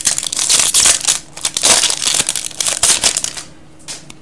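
Foil trading-card pack wrapper being torn open and crinkled, a loud crackling rustle that stops about three and a half seconds in, followed by a faint tick near the end.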